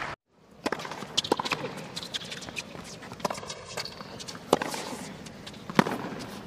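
Tennis rally on a hard court: sharp pops of rackets striking the ball and the ball bouncing, with the two loudest hits about a second and a half apart in the second half.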